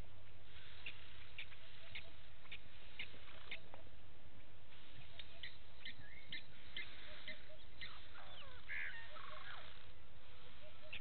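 Blacksmith lapwings calling: a string of short, sharp 'tink' notes, about one or two a second, with a few quick gliding calls from other birds about three-quarters of the way through.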